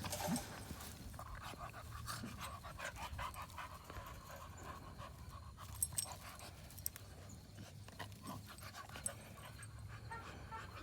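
Dogs panting as they play, with small scattered clicks and rustles from their paws in pelletized bedding.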